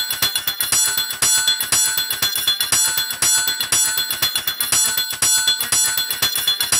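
Background electronic dance music in a breakdown without its kick drum: fast, evenly repeating bell-like synth notes.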